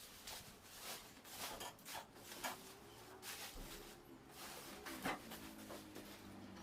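Rustling and light clicks and knocks of packaging and an air fryer being handled while unboxing, a few scattered strokes with the sharpest about five seconds in.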